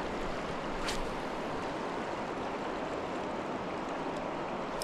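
River current rushing steadily over a riffle, with one light click about a second in.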